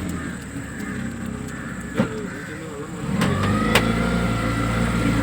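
Tour boat's engine running, then revving up about three seconds in and holding at a steady higher speed with a whine over it; a sharp knock comes about two seconds in.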